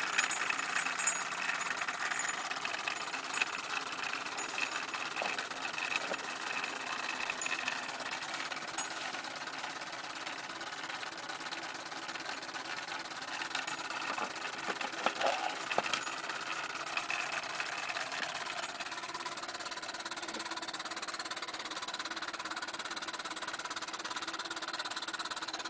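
Steam-powered grain mill running: the small steam engine drives the mill by a belt, a steady mechanical running and knocking of the grinding machinery.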